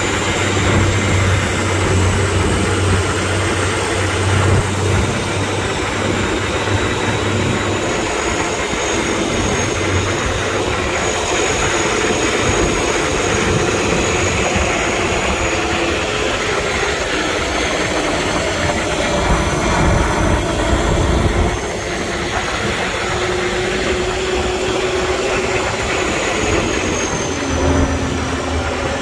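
Off-road dump truck's diesel engine running as the truck drives. It is a steady engine drone with a thin high whine over it, and the engine note shifts in pitch a few times.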